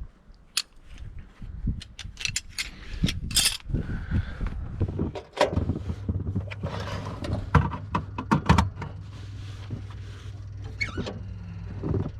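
Clicks, knocks and clattering from the New Holland L150 skid steer as it is got ready. About halfway through, its engine starts and runs on at a steady idle.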